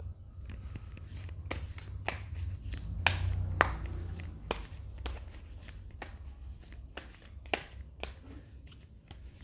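Hands handling tarot cards on a table: irregular light clicks and taps, a couple a second, over a low steady hum.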